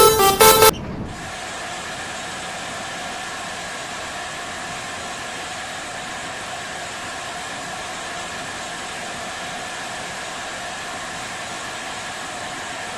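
A bus telolet horn's tune cuts off abruptly under a second in, leaving a steady vehicle hum and hiss.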